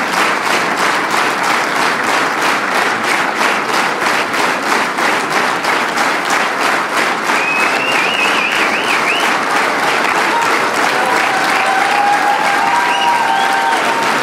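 Theatre audience applauding, at first clapping together in a steady rhythm of about three claps a second, then breaking into looser applause with whistling from about halfway through.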